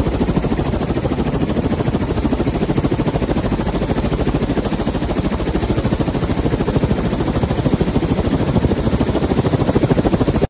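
Airbus AS350 Squirrel helicopter running on the ground with its main rotor turning, heard loud from close beside it: a steady turbine noise under the fast, even chop of the rotor blades.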